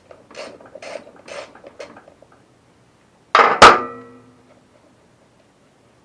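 Small metal parts clinking a few times, then a single loud steel clang about three and a half seconds in that rings on for about a second: mower blade hardware being handled and set down on a metal surface.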